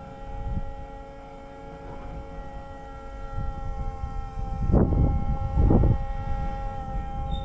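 M51 5-ton 6x6 military dump truck's multifuel diesel engine running just after starting, a steady whine over the low engine rumble. The engine is revved twice, about five and six seconds in.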